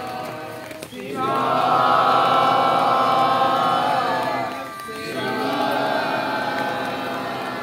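A group of voices singing or chanting together in long held notes, breaking off briefly about a second in and again near five seconds in.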